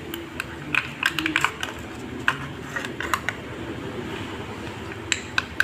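Irregular light clicks and taps of small metal parts of a scooter's CVT variator being handled and fitted by hand as the bush goes onto the shaft, over a steady low hum.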